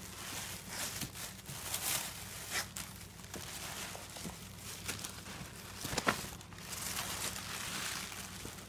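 Tissue paper rustling and crinkling in irregular bursts as a dog noses and paws through gift wrapping, with a few short sharp crackles.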